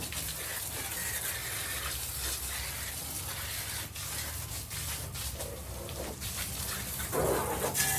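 Water spraying steadily from a hose, rinsing down a truck. Near the end a louder sound with a few held tones comes in.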